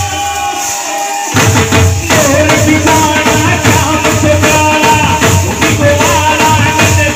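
Live bhajan (Hindu devotional song) music: an electronic keyboard melody over a regular drum beat and jingling hand cymbals. The drums drop out for a moment about a second in, then come back in.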